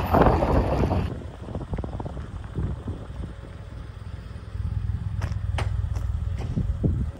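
Wind buffeting the microphone on a moving vehicle, then after a cut a low vehicle engine rumble with scattered clicks. The rumble grows steadier and louder about four and a half seconds in.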